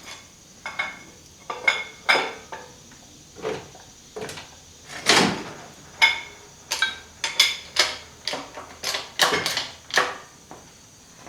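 Irregular metallic clanks, clicks and knocks, about twenty of them, some ringing briefly: metal parts and hand tools knocking together while an engine and transmission are worked into place on their mounts.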